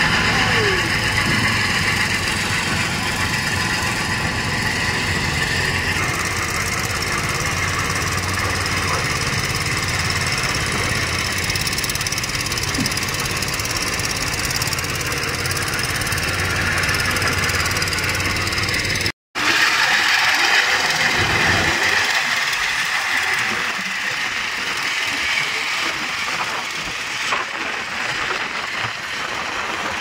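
Engines of a JCB backhoe and a laterite stone-cutting machine running steadily, a low rumble under a high whirring band. About two-thirds of the way in the sound cuts out briefly, and afterwards the low rumble is gone, leaving a lighter, hissing noise.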